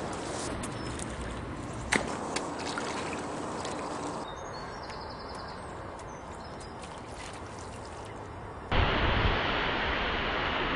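Outdoor ambience by open water that changes with each cut, with a single sharp tap about two seconds in. From about nine seconds in, loud wind noise on the microphone.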